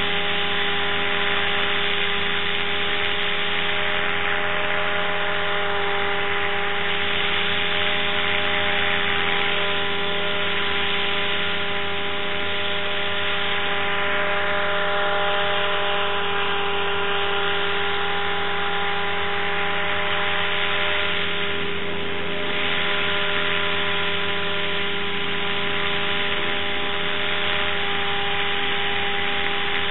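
A steady machine drone with hiss, several constant tones held unchanged: a motor running at a constant speed.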